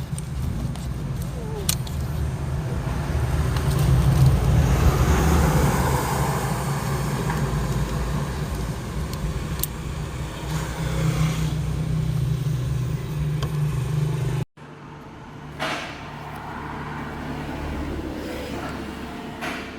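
Car engine running steadily with a low hum, swelling somewhat about four to six seconds in. About fourteen seconds in the sound breaks off abruptly and comes back quieter.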